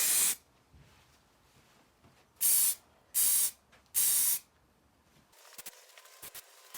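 Aerosol spray can of grey plastic primer hissing in four short bursts: one right at the start, then three in quick succession from about two and a half seconds in. Faint rapid ticking follows near the end.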